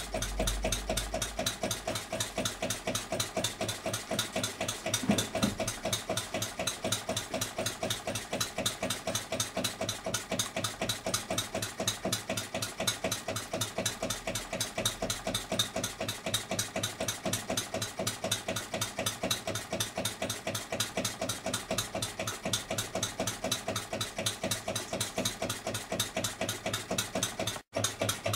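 Home-built single-cylinder horizontal model diesel engine (20 mm bore, 44 mm stroke, converted from a hot-bulb engine) running under its own power. It beats steadily and evenly at about four to five beats a second.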